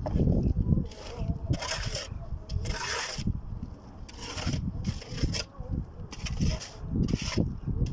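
Long-handled metal hand tool scraping and digging at sand and rubble against a grave's concrete base, in a series of rough, separate strokes about once a second.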